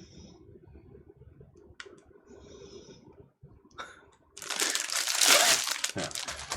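A few light clicks and faint rustling, then from about four seconds in loud, continuous crinkling and tearing of a plastic packaging bag as it is pulled open and handled.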